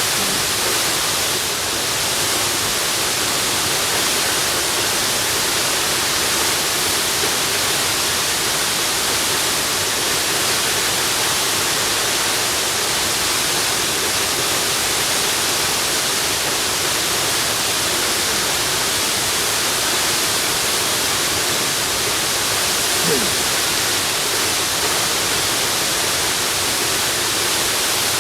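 Waterfall: steady, unbroken rushing of falling water, an even hiss strongest in the high range.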